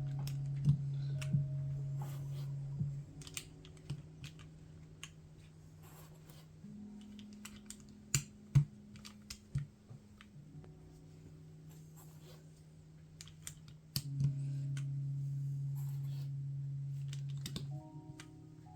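Scattered, irregular clicks of keycaps being pressed onto a mechanical keyboard's switches, over background music of sustained low notes that change every few seconds.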